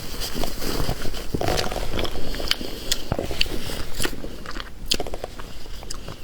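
Close-miked chewing and biting of fatty steamed fish, with many short mouth clicks.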